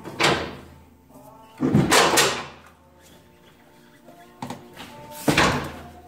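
Clunks and scraping of metal from a homemade angle-iron and flat-steel wheel ladder as a motorcycle rear wheel is lifted and pulled out, in three separate bursts.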